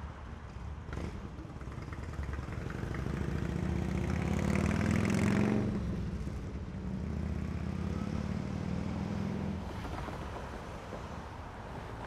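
A motor vehicle passing close by: its engine noise builds to the loudest point about five seconds in, then drops off, with a quieter engine sound carrying on until near the end.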